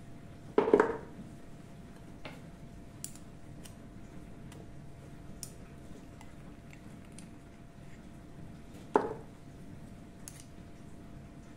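Metal spoon knocking and scraping against a mixing bowl as honey and oil are spooned in: one short clatter about a second in and another near the end, with a few faint ticks between.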